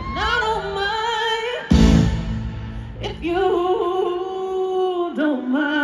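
A woman's voice singing long held, wavering notes and runs over music, with a single deep bass hit about two seconds in.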